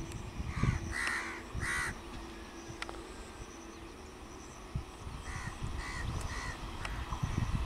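A crow cawing repeatedly: three loud caws in the first two seconds, then several fainter ones later. Under it runs the low rumble of an approaching electric multiple unit local train.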